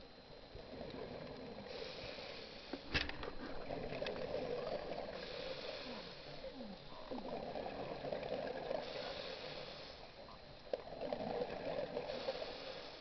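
Scuba diver's open-circuit regulator breathing underwater: a hiss on each inhale, then a rush of exhaled bubbles, three breaths in all. A sharp click comes about three seconds in.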